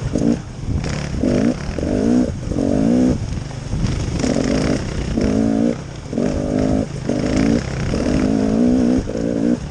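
Off-road vehicle engine revving in repeated short bursts, the throttle opening and easing off about once a second, over a steady low rumble.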